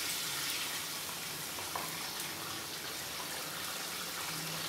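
Beef pieces in thin, watery gravy simmering in a karahi: a steady bubbling sizzle with a few faint pops.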